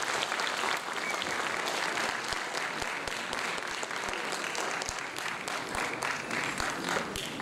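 Audience applauding, with the dense clapping easing off slightly toward the end.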